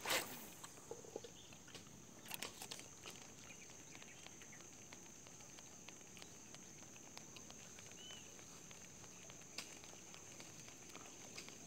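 Fishing rod and spinning reel handled during a lure retrieve: a sharp knock at the start, a few clicks about two and a half seconds in, and scattered light ticks. Behind it runs a steady high-pitched insect drone.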